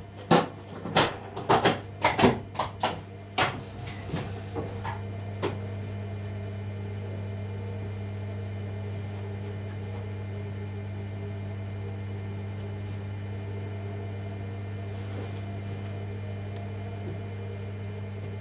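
A quick run of sharp clicks and knocks over the first five seconds or so, then only a steady low electrical hum, in the driver's cab of an electric multiple-unit train.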